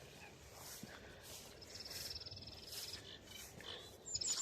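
Reed warbler singing: a fast, chattering run of repeated high notes, then a louder burst of higher notes near the end.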